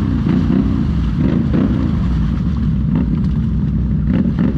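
ATV engine revving up and down repeatedly under throttle, its pitch rising and falling several times a second.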